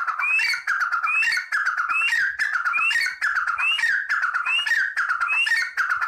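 Grey francolin (teetar) calling a loud, repeated phrase about once every 0.8 seconds: each phrase is a short rising note followed by a quick run of lower, falling notes.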